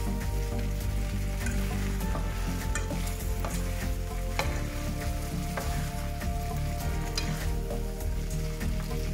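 Wide rice noodles, chicken and greens sizzling in a hot stone-coated wok as they are stir-fried. The spatula scrapes and clicks irregularly against the pan.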